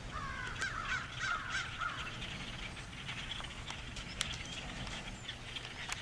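A huge flock of small dark songbirds calling all at once: a dense chatter of many overlapping calls, with a run of sliding whistled calls in the first two seconds.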